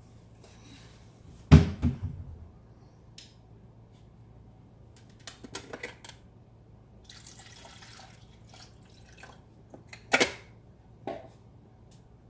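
Kitchen handling sounds: a heavy knock about a second and a half in, a few light clicks and clatters, a short soft hiss a little past the middle, and a sharp knock near the end followed by a lighter one.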